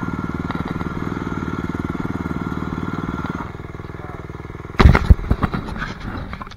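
Dirt bike engine idling with a steady, even beat; about three and a half seconds in it drops quieter. Near five seconds a burst of loud knocks and clatter, then scattered smaller knocks.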